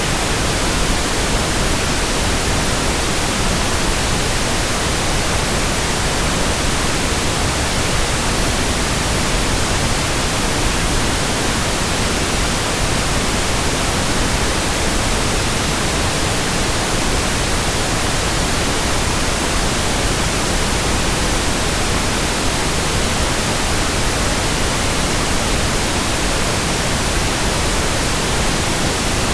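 Steady pink noise: an even, unbroken hiss with no changes.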